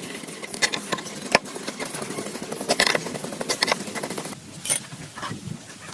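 Hand work on metal parts: a steady scraping noise with many sharp metallic clinks and knocks, easing off about four seconds in to scattered clinks.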